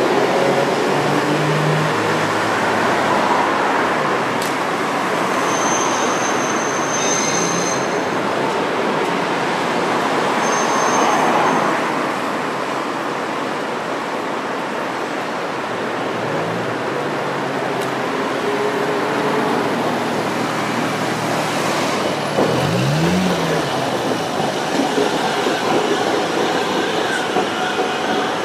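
Iyo Railway trams running through a busy city street alongside steady road traffic, with cars and a truck passing close. Brief high-pitched squeals of tram wheels on the rails come twice, about six and eleven seconds in.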